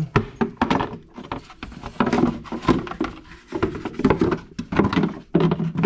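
Plastic CVT clutch cover of a Can-Am Maverick X3 being fitted by hand over the clutches: irregular knocks, scrapes and rattles of the plastic cover against the housing.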